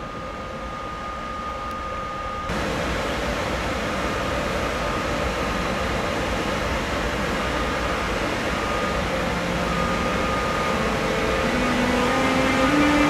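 Electric train rumbling and growing steadily louder. From about eleven seconds in, an electric locomotive's traction converter sounds a scale of tones rising step by step.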